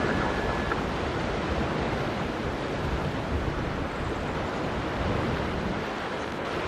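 Boeing 777-300 airliner's jet engines during the landing rollout on the runway: a steady, even rushing noise, mixed with wind on the microphone.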